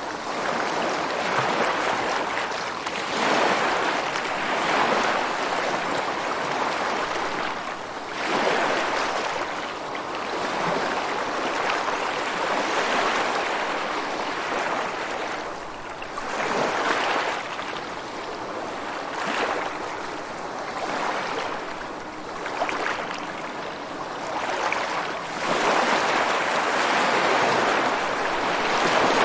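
Ocean surf: waves breaking and washing up in a continuous rush, swelling and easing every few seconds, with the loudest swell near the end.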